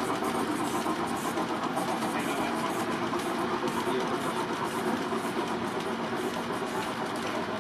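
Steady rumble of large-scale garden railway model trains running along the track.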